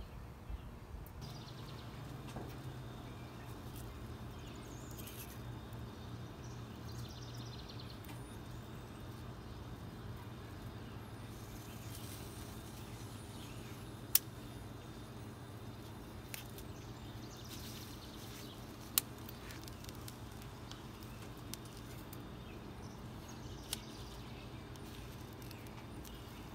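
Jalapeño peppers being turned by hand on gas grill grates, with a few sharp clicks as they are moved and set down, over a steady low hum and faint bird chirps.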